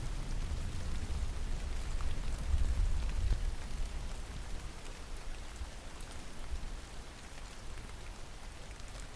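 Steady rain falling, with scattered drop ticks. A low rumble of distant thunder swells about two to three seconds in and fades away in the second half.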